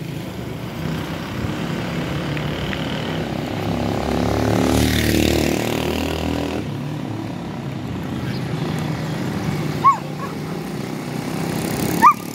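A vehicle engine running with a steady low hum that grows louder for a couple of seconds around the middle. There are brief dog yelps about ten seconds in and again near the end.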